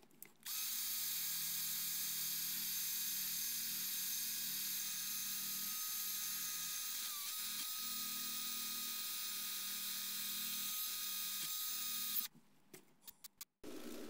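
Electric drill spinning a wheel against the rusty steel bolster of a pocket knife: a steady high whine that starts about half a second in and cuts off suddenly near the end, followed by a few light clicks.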